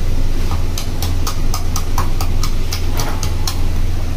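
Regular sharp ticking, about four ticks a second, over a steady low hum.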